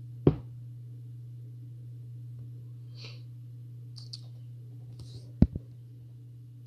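Steady low hum from the recording setup, with two sharp clicks, one about a third of a second in and a louder one about five and a half seconds in, and a few faint breaths in between.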